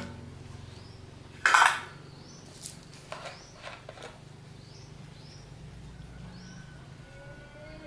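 One short metallic clank about one and a half seconds in, then a few light clicks, over a low steady hum, with birds chirping several times.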